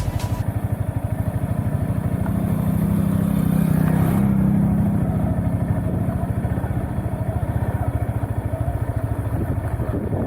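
Yamaha XSR155's single-cylinder engine running as the motorcycle is ridden, with its rapid, even firing pulses. The engine note rises a little about two seconds in and eases back after about five seconds.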